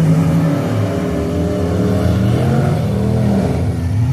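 Several demolition derby cars' engines revving at once, their pitches rising and falling over one another.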